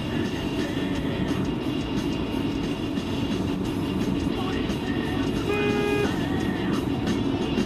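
Steady road and engine noise inside a moving car's cabin, with a car radio playing faintly over it; a short held tone sounds a little past halfway through.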